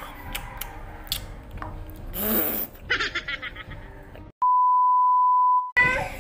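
A single steady high beep lasting about a second and a half, cut in over silence near the end: an editor's censor bleep. Before it, scattered clicks and a brief rustle.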